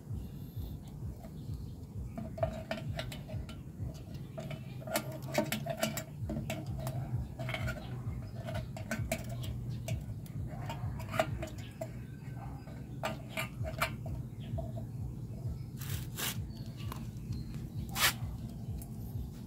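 Scattered clicks, taps and light clatter of plastic and metal parts as a Yamaha Mio Gravis scooter's fuel pump module is handled and worked on by hand, with a few sharper clicks near the end. A steady low hum runs underneath.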